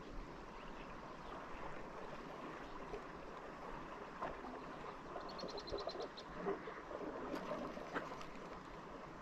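Creek water running steadily, with a quick run of high ticks a little past five seconds in and a few light knocks later on.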